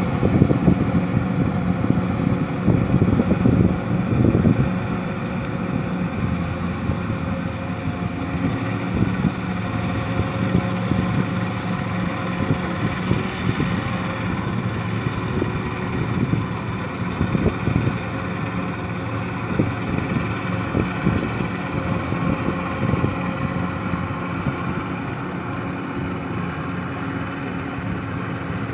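An engine running steadily at a constant speed, with an even hum and light knocking throughout.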